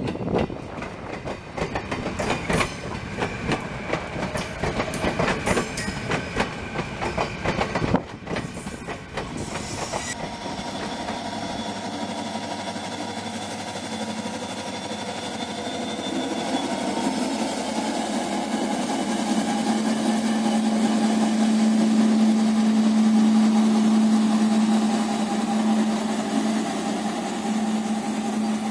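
An electric multiple-unit train passing, its wheels clicking and knocking over the rail joints. After an abrupt change about a third of the way in, a diesel locomotive hauling passenger coaches out of a station gives a steady low drone that grows louder toward the end.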